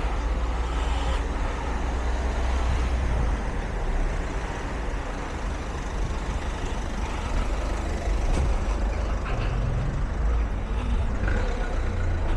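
City street traffic: a steady low engine rumble from passing motor vehicles, with tyre and road noise.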